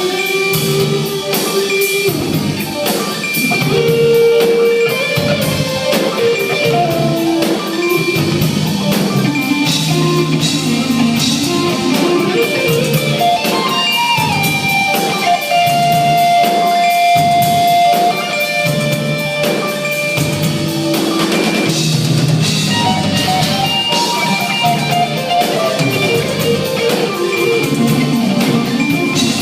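Live rock band playing an instrumental passage: electric guitar lead with held and bending notes over a drum kit, loud throughout.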